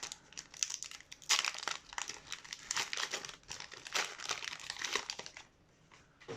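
Foil wrapper of a Pokémon trading card booster pack crinkling as it is opened and the cards pulled out, a dense crackle that stops about five and a half seconds in.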